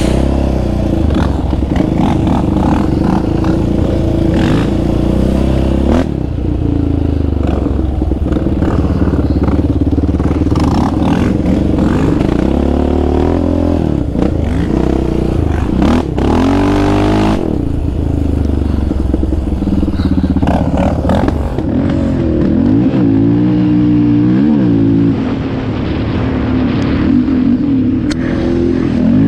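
Sport quad engine running hard on a dirt trail, its pitch rising and falling over and over as the throttle is opened and closed.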